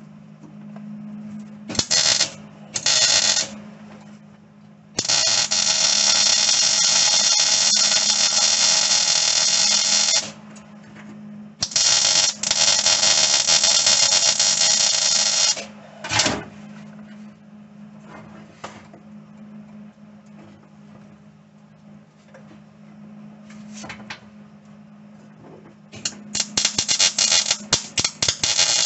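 Arc welding on the steel floor brace of a 1985 Ford Ranger cab. The arc crackles in bursts: two short tacks, then two longer runs of about five and four seconds, then a series of short stuttering tacks near the end. A steady low hum is heard between the bursts.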